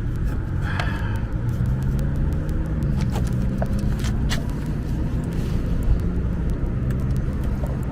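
Steady low rumble of motor-vehicle traffic, with engine notes slowly rising and falling, and scattered light clicks and taps on top.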